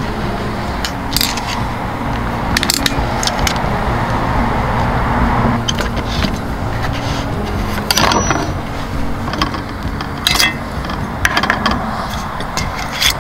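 Scattered light clinks and knocks of small hard objects being handled, about a dozen sharp strikes at uneven intervals, over a steady low background.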